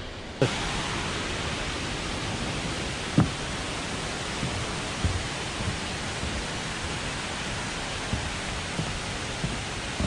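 Steady rushing roar of a tall waterfall, starting abruptly about half a second in, with a few scattered soft thumps over it.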